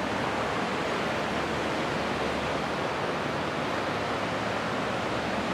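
Steady, even rushing of a river in the canyon below the walkway.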